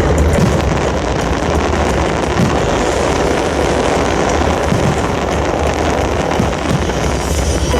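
A dense barrage of star mine fireworks: a continuous rumbling roar of overlapping bursts and crackle, loud throughout with no clear gaps.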